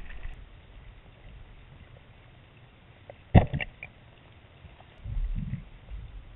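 Muffled underwater sound from a submerged camera: low rumbling water movement, with one sharp knock about three and a half seconds in and a burst of low rumbling around five seconds in.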